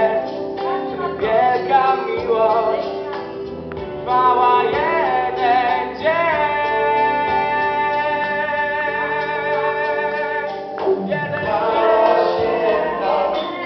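Small vocal group singing a Polish Christmas song into microphones, with one long held note about halfway through.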